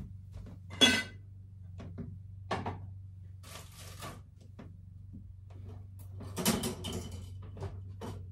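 Kitchen clatter of items being knocked and moved about: a ringing clink about a second in, a knock a little later, a rustle around four seconds, and a cluster of clatter near the end, over a steady low hum.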